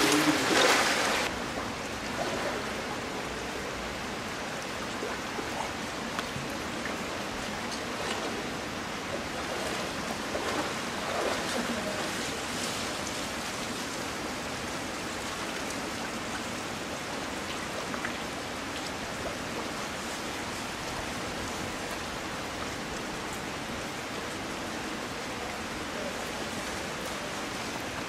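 A polar bear's big splash into the pool, dying away within the first second or so, then steady heavy rain hissing on the water and rocks.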